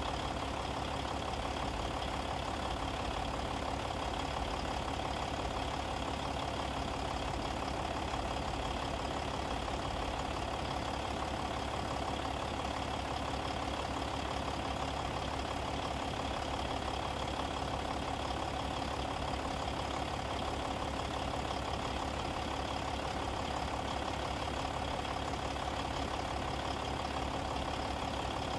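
An engine idling: an even drone that does not change.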